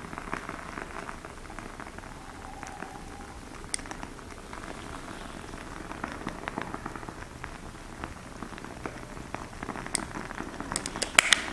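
Jar candles being lit with a long candle lighter: faint crackling and many small scattered clicks, with a cluster of sharper, louder clicks near the end.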